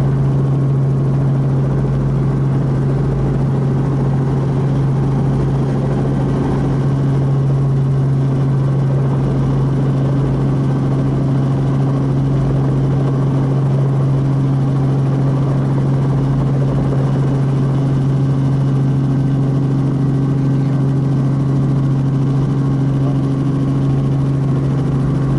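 Small helicopter's engine and rotor running steadily, heard from inside the cockpit: a constant low hum over a spread of engine noise, while it hover-taxis below effective translational lift.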